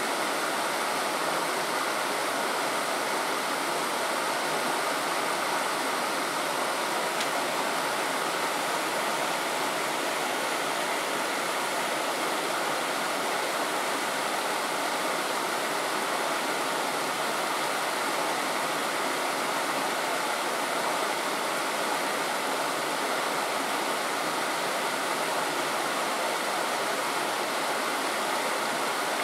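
Steady rushing of flowing water, an even noise that does not change.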